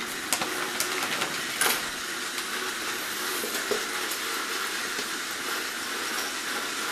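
Steady background hiss, with a few light clicks and rustles in the first two seconds and a faint knock near the middle: a child rummaging in a plastic bag and setting a toy train onto a plastic track.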